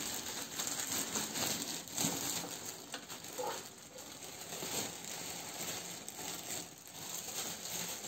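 Packaging being unwrapped by hand from a blender's motor base: an irregular crinkling rustle with many small clicks and taps.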